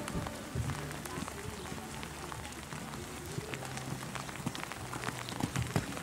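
Rain pattering in many small irregular ticks.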